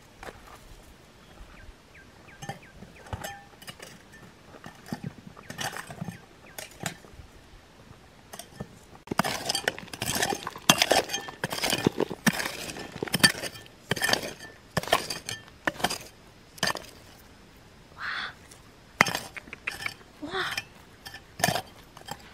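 Sharp clinks and knocks of hard objects striking one another. They come scattered at first, then thick and fast for several seconds in the middle, then a few more near the end.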